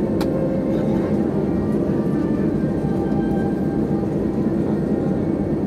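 Jet airliner engines running at idle during taxi: a steady, even rumble with faint thin whining tones above it and one short click just after the start.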